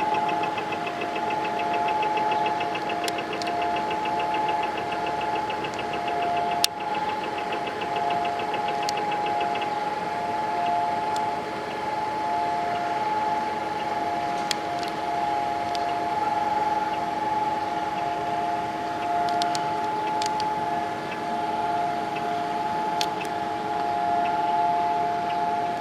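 Israeli civil-defence siren holding one steady, unwavering tone, the memorial siren that marks the moment of mourning for the fallen. A faint rapid ticking runs under it for the first ten seconds or so, and there is a single sharp click about seven seconds in.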